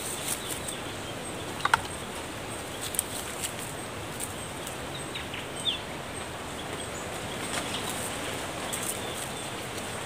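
Thin twigs being handled and bent by hand: a few sharp ticks and snaps, the loudest a quick pair about two seconds in, over a steady outdoor hiss. Faint short bird chirps come in a little past the middle.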